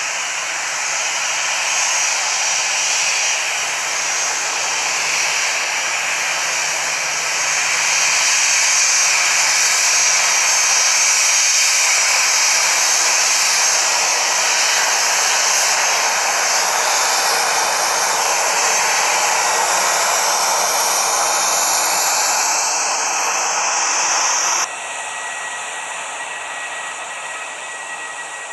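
Jet engines of an easyJet Airbus A320-family airliner taxiing close by: a loud, steady rushing whoosh with a high whine over it. About 25 s in the sound drops abruptly to a quieter jet whine with a steady high tone from an Airbus A319 on final approach.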